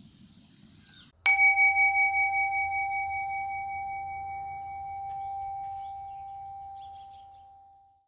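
A singing bowl struck once about a second in, its clear tone ringing on and slowly fading, with a slight pulsing in loudness as it begins to decay.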